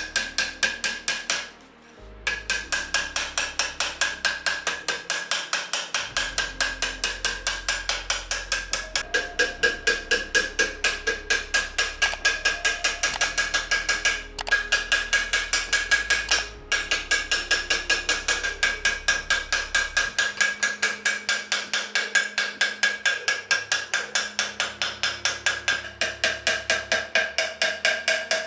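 Rapid, even hammer taps on the flared foot of a small metal vase held against a steel anvil, about six or seven a second, each with a metallic ring. The bent foot rim is being hammered back into shape. The tapping breaks off briefly a few times.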